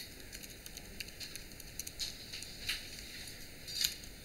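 Typing on a computer keyboard: irregular light key clicks, several a second, with one louder click near the end.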